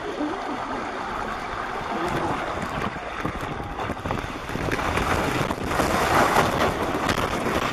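Rushing water and wind noise on the microphone as a rider speeds down a steep water slide, getting louder about four seconds in as water sprays over the camera.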